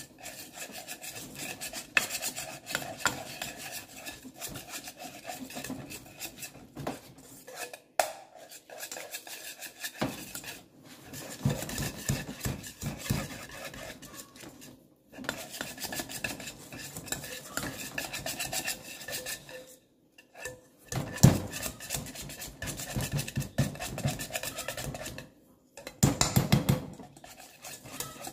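Wire balloon whisk beating soft butter by hand in a stainless steel mixing bowl: rapid, rhythmic scraping and clinking of the wires against the metal bowl, with brief pauses now and then. This is the first stage of creaming, beating the butter to soften it.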